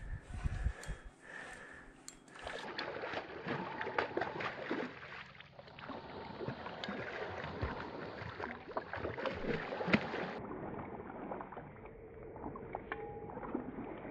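A hooked lake trout thrashing and splashing at the surface of the water, with irregular splashes and slaps against the surface. Wind buffets the microphone in the first second.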